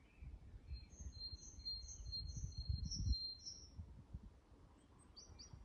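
A small songbird sings a short phrase of about seven quick, high repeated notes over a thin steady whistle, with a couple of single chirps near the end. Under it a low rumbling noise swells during the first three seconds, then dies away.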